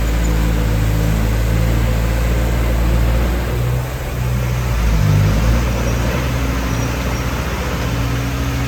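Diesel engine of a heavy earthmoving machine running steadily, with a deep rumble that shifts in pitch now and then as the load changes.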